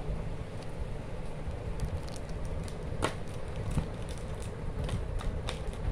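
Foil-wrapped chocolate bars handled and set into a plastic tray: scattered light clicks and crinkles, the sharpest about three seconds in, over a steady low rumble.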